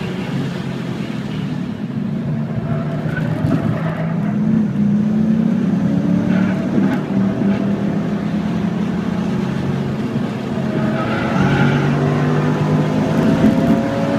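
Audi RS4 engine at full throttle in third gear, heard from inside the cabin over road and wind noise. The revs ease slightly through the corner, then climb steadily toward the end, from about 5,000 to nearly 7,000 rpm.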